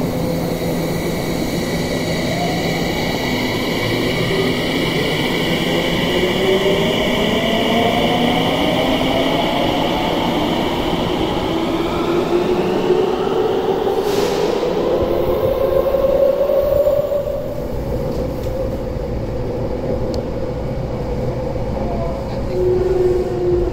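Tsukuba Express electric train pulling out of an underground station, its inverter-driven traction motors whining in several tones that climb steadily in pitch as it gains speed, over wheel and track rumble. Near the end this gives way to the steady running rumble heard inside a Rinkai Line train.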